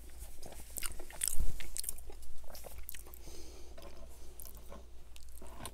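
Close-miked chewing of a mouthful of curly fries: crunching and wet mouth clicks, loudest about a second and a half in, easing to quieter chewing in the second half.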